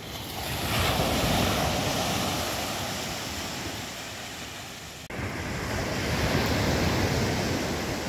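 Sea surf breaking on the shore: a wave swells over the first second and slowly washes out, then after a sudden break about five seconds in, another wave swells and breaks. Some wind on the microphone is mixed in.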